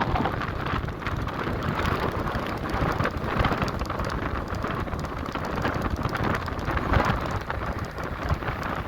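Heavy rain pouring steadily, with a constant patter of drops over a low rumble.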